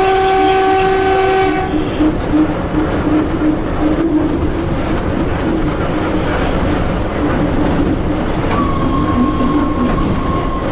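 Electric locomotive running at speed, heard from the cab: steady running noise with wheel clatter over the rail joints. A horn sounds at the start and stops about two seconds in, and near the end a single steady high tone sounds for about two seconds.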